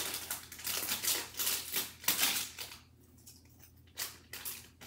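Crinkling and tearing of a toy blind-bag packet being pulled open by hand, in quick bursts of rustling with a pause of about a second before a few more.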